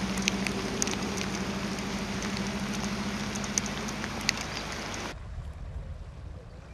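Rain falling with scattered sharp drop ticks over a steady low motor hum. About five seconds in it cuts abruptly to a quieter low rumble.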